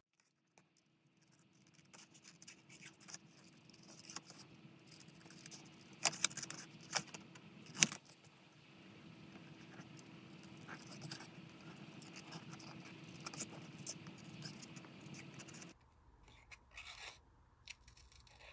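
Small scissors fussy-cutting around a stamped image in cardstock: faint snips and scrapes of the blades and paper, with a few sharper clicks around the middle. Under them runs a steady low hum that starts just after the beginning and cuts off abruptly a couple of seconds before the end.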